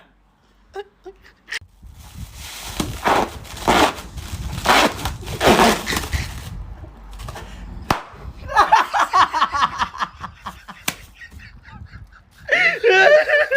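Loud, hoarse yelling and laughter in bursts from a person close to the microphone, with a high, wavering cry near the end.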